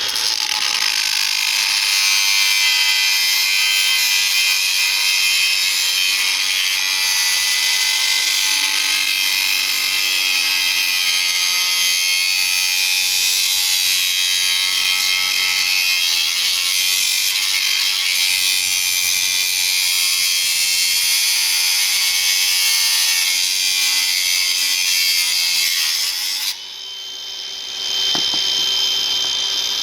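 A handheld power tool running continuously while working on a scrap water meter. It cuts out about 26 seconds in and starts up again a second or two later.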